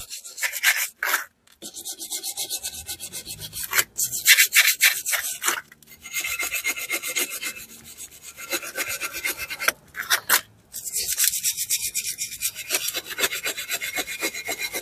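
Steel wire brush scrubbing rust off a rear brake caliper bracket, cleaning the surfaces the brake pads slide on. It makes fast back-and-forth scratching strokes, with a few short pauses.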